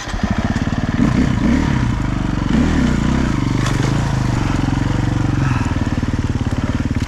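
Dirt bike engine revving up and down under load, its pitch rising and falling repeatedly as the throttle is worked.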